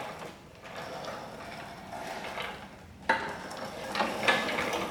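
Steel welding cart being handled and moved, its metal rattling and clunking, with a sharp clunk about three seconds in.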